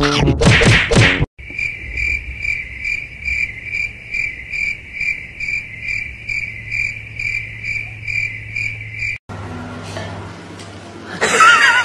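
A high chirp repeated evenly about two and a half times a second for several seconds, then stopping abruptly. A short loud burst comes in the first second, and another near the end.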